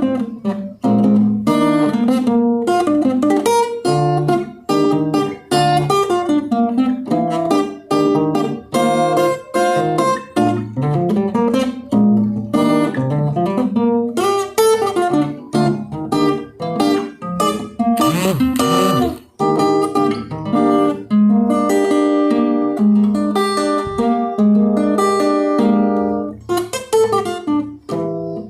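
Acoustic guitar played solo without singing, a steady stream of plucked notes and strummed chords.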